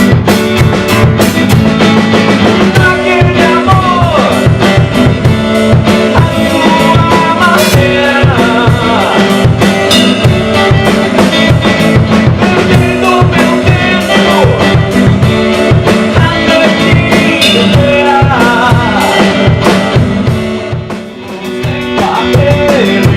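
Band music: a drum kit keeping a steady beat under guitar, with a melody line that slides in pitch. The music dips briefly in loudness near the end.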